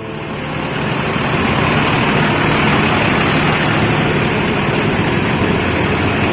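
Diesel bus engine running steadily, growing louder over the first second or so and then holding steady.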